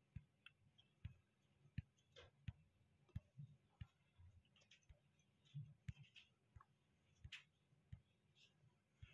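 Near silence with faint, irregular clicks and taps, about one or two a second.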